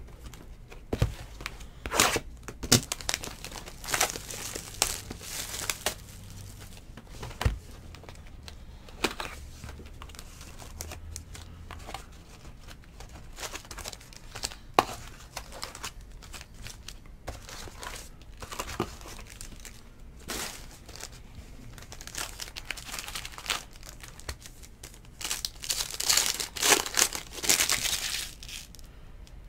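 Trading-card pack wrappers being torn open and crinkled by hand, with cards handled in between; irregular rustling and tearing with a few sharp clicks, busiest and loudest near the end.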